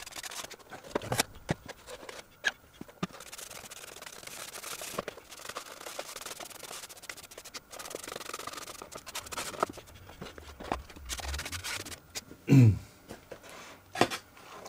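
Paintbrush stroking paint onto the balsa wood of a model aircraft's fuselage and tailplane: a soft brushing rub with scattered light clicks as the parts are handled. One louder knock comes near the end.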